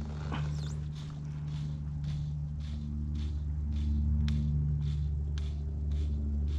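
Fly line being stripped in to work a fly, short even swishing pulls about two a second, over a steady low hum.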